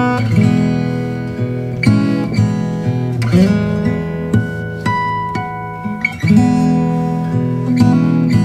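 Background music: acoustic guitar playing plucked and strummed chords, with a new chord or note struck about every second.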